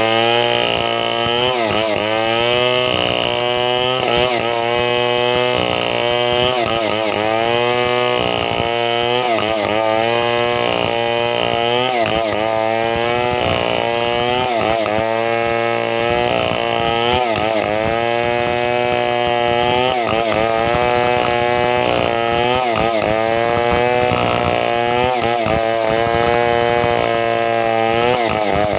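Two-stroke chainsaw running at high revs through the whole stretch. Its engine note sags and climbs back over and over, roughly every two seconds, as the saw is loaded in the cut and then eases.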